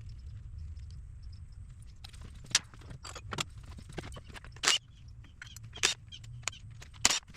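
Scattered sharp metallic clinks and clacks of hand tools and metal parts being picked up and set down while starting an engine teardown, with a few louder knocks, over a low steady hum.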